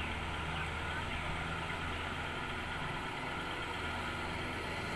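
Farm machine's diesel engine running steadily at an even speed.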